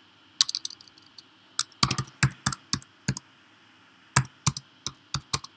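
Typing on a computer keyboard: irregular key clicks in short flurries, with brief pauses between them.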